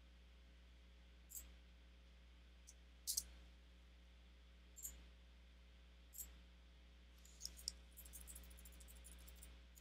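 Faint computer mouse clicks, single and sharp every second or two with a quick double click, then a rapid run of keyboard keystrokes near the end while text is edited in a form field.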